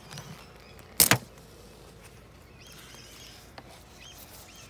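Ratchet tie-down strap buckle being released by hand: one sharp metallic double clack about a second in.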